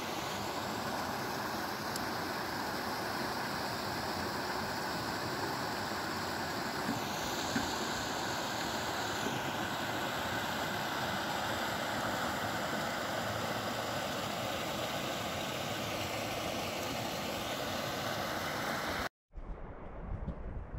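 Creek water running over a small rocky cascade, a steady rushing noise. It cuts off about 19 s in, giving way to wind buffeting the microphone.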